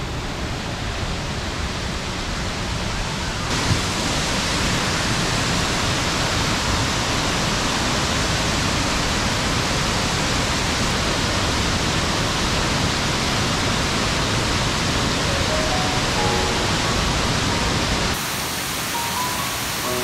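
Waterfall pouring down a rock face into a rocky pool: a steady rush of falling water that grows fuller and brighter about three seconds in. Faint music notes come in near the end.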